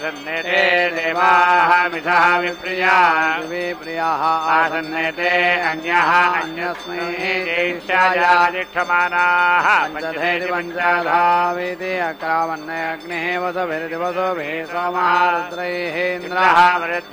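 Vedic Sanskrit mantras chanted by male voices in a sing-song recitation, over a steady drone.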